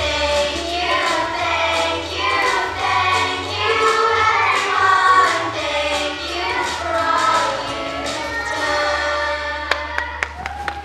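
Group of preschool children singing a song together over a low bass accompaniment. The song ends about a second before the end, and a few scattered claps begin.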